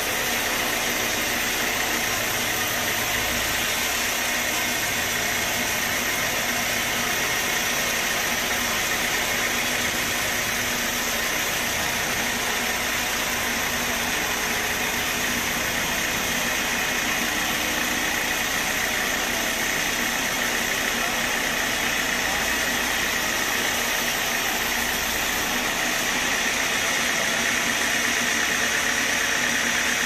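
Band sawmill running steadily, an even machine noise that neither rises nor falls.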